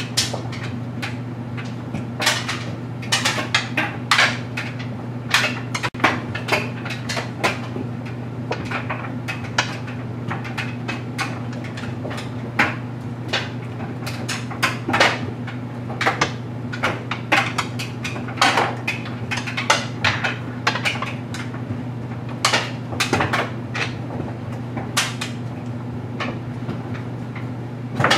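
LG Mega Capacity clothes dryer running with a steady motor hum, under irregular clacks and knocks as a load of stuffed animals tumbles in the drum.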